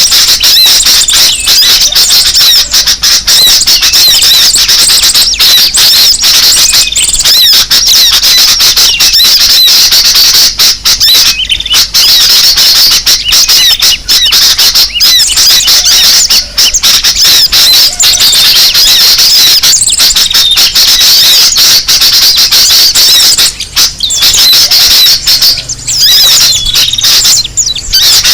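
Loud, continuous chatter of many small birds calling over one another, led by sooty-headed bulbuls (kutilang): a bird-lure recording.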